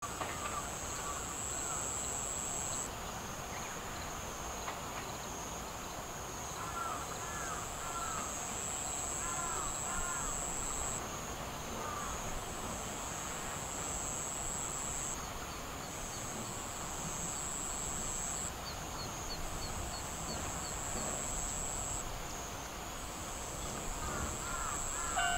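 Rural outdoor ambience beside a railway line: a steady high-pitched whine that shifts slightly in pitch every few seconds, with scattered short bird calls, bunched together in the middle.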